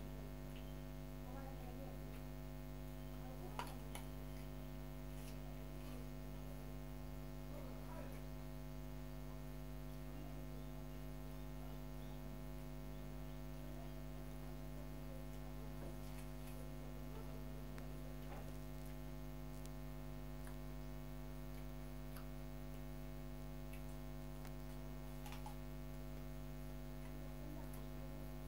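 Steady low electrical hum with several even tones, and a few faint clicks, the clearest about three and a half seconds in.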